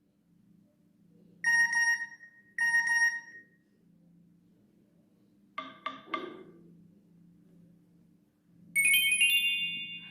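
Nokia E63 phone speaker playing short alert tones one after another, each a different tone: the same brief two-tone chime twice, then a quick cluster of plucked-sounding notes, then a bright high flourish near the end.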